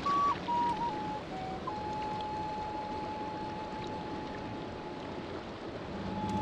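Wooden flute playing a few short notes that step down in pitch, then holding one long steady note, over a faint background hiss.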